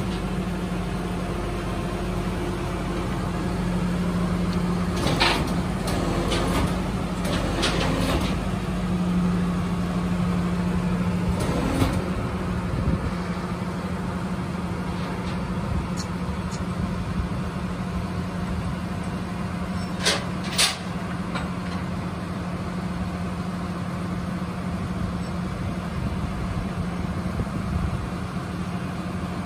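Tilt-tray tow truck's engine running steadily while a sedan is winched down the sloping steel tray. A few clanks come around five to eight seconds in, and two sharp knocks about twenty seconds in.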